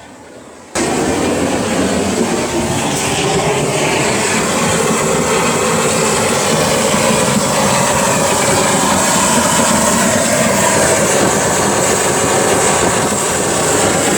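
Waste-oil burner firing a foundry furnace, a really loud, steady roar of forced air and flame that sounds like a jet engine. It cuts in abruptly about a second in.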